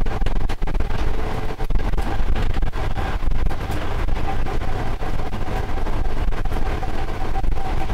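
Diesel freight locomotive running at speed, heard from inside the cab: a steady low engine and wheel-on-rail rumble with a thin steady whine above it and occasional faint clicks.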